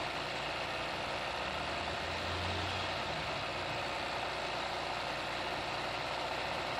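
Sewing machine running steadily, its needle stitching free-motion embroidery through hooped fabric.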